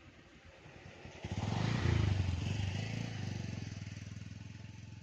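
Engine of a passing motor vehicle: it comes in suddenly about a second in, is loudest about two seconds in, then fades slowly.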